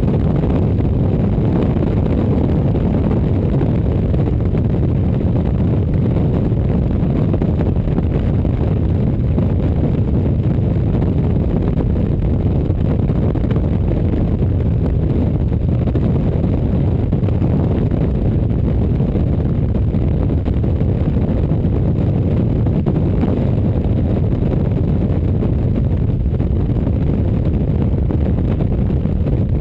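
Steady wind rush on the microphone mixed with a motorcycle's engine and road noise while cruising, an even low rumble that doesn't change.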